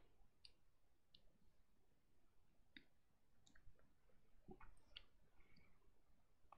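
Near silence: quiet room tone with a few faint, scattered clicks.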